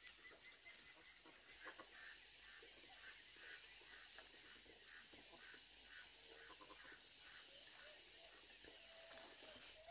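Near silence: faint outdoor quiet with a steady high hiss, and from about two to seven seconds in a faint animal call repeating evenly, about two and a half times a second.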